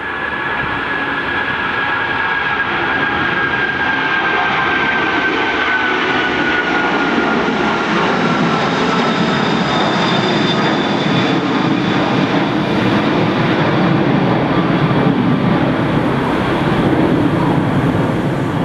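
Boeing 747 freighter's four jet engines at take-off power as it climbs away: a loud, steady jet noise with a whining tone that slowly falls in pitch.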